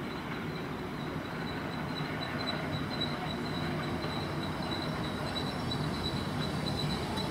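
A Class 456 electric multiple unit drawing into the platform, its running noise slowly growing louder as it approaches. A thin, steady high squeal runs through it.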